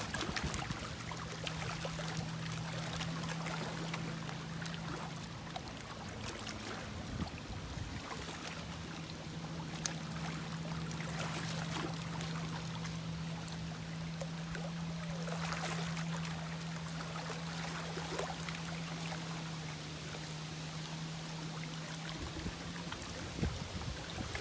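Lake water lapping and trickling, with small splashes. Under it runs a steady low hum that breaks off briefly partway through and stops near the end.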